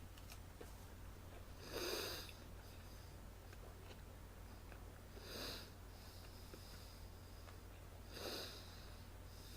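A man's heavy, noisy breaths, three of them about three seconds apart, each about half a second long, as he eats a very hot Jigsaw chilli pepper; the hard breathing is a reaction to the chilli's heat. A steady low hum runs underneath.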